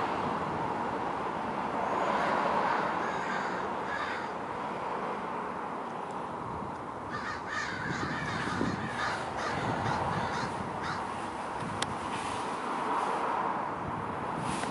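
A group of American crows cawing over one another, with a busier run of calls about halfway through: the alarm chorus of crows mobbing a predator.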